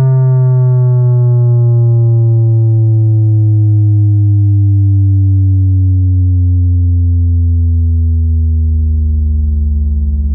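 Loud synthesized bass test tone with a stack of overtones, gliding slowly and steadily down in pitch. Near the end it begins to pulse.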